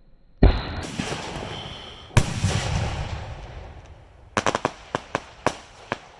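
Aerial fireworks bursting: a loud bang about half a second in and another about two seconds in, each followed by a long rumbling echo, then a quick string of sharp cracks near the end.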